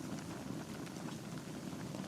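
Logs burning in a fireplace: a steady low rumble of flame with small, scattered crackles.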